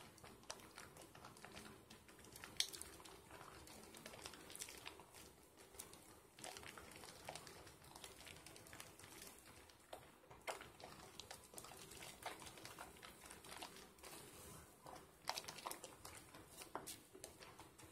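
Soapy hands working thick lather from bar-soap slivers, a faint, irregular wet crackling and squishing with a few sharper clicks.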